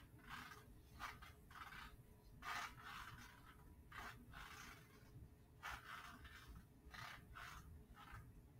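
Near silence: faint, muffled sounds come and go a few times a second over a low steady hum.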